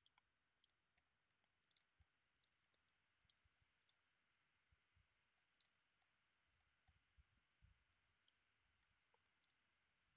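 Near silence with faint, irregular computer mouse clicks, some in quick pairs.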